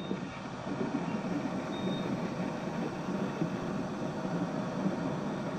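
Steady whirring hum of the Triton 1000/2 submersible's machinery, heard from inside its acrylic cabin as it ascends, with a short faint high beep about two seconds in.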